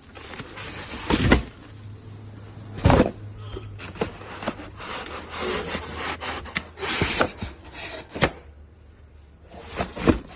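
Irregular rubbing and scraping with several sharp knocks, as of fan parts being handled and fitted by hand, over a faint steady low hum.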